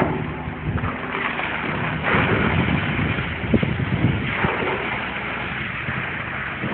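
Truck-mounted concrete boom pump running with its diesel engine steady under load, pushing concrete through the delivery hose into the slab in surges about every two seconds.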